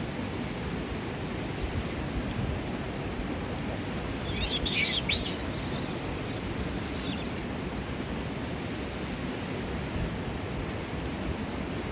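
Steady rushing noise of flowing hot-spring water, with a short burst of high bird chirps about four to seven seconds in.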